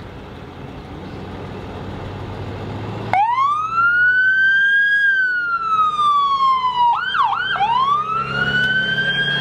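Ambulance's electronic siren switching on about three seconds in: a rising wail that slowly falls, two quick yelps, then a second rising wail. Before it, a vehicle engine rumble grows louder.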